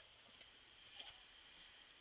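Near silence: a faint steady high-pitched hiss, with one faint click about a second in.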